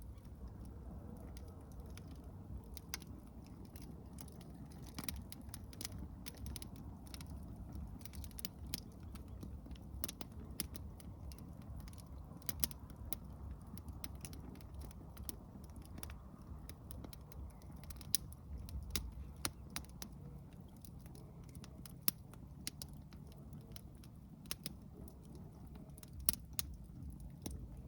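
Wood fire crackling, with sharp irregular pops and snaps of burning firewood over a steady low rumble.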